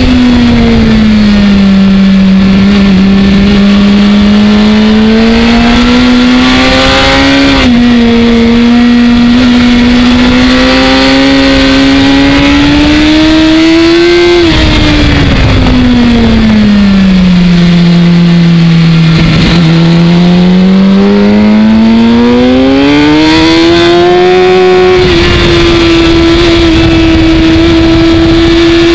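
Sport motorcycle engine pulling hard at racing pace on track. Its note climbs through the revs, dips slightly about seven seconds in at a gear change, falls steadily around the middle as the bike slows for a corner, then climbs again and holds high near the end. Wind rushes past the onboard microphone throughout.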